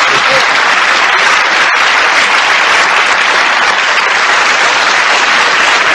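Audience applauding: a full, steady round of clapping.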